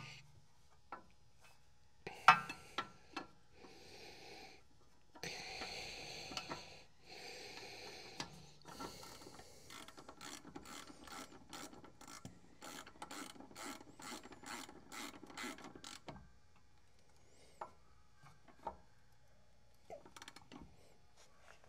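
Hand ratchet clicking as a brake caliper bolt is run in and tightened, with a fast, even run of clicks through the middle and a few scattered clicks and rubs around it.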